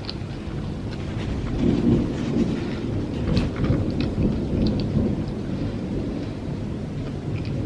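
Close-miked chewing of fried chicken tenders and fries: a dense, low, rumbling mouth noise that swells and eases, with scattered short crisp crunches and smacks.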